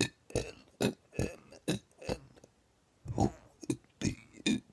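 A man burping over and over in short, quick burps, about three a second, with a brief pause a little past the middle.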